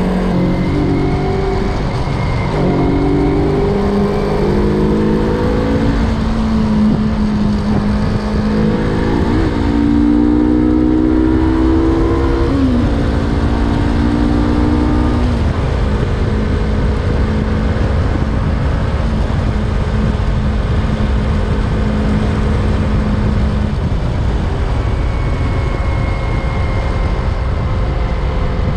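Yamaha MT-03 motorcycle engine heard while riding: it revs up and drops back several times as it shifts up through the gears in the first half, then holds a steady pitch while cruising, and gives way to a steady rushing hum of wind and road noise near the end.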